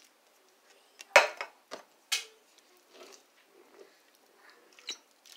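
A few sharp metallic clinks against a stainless steel pot, the loudest about a second in. Then a metal spoon stirs rice and evaporated milk in the pot, with soft scraping.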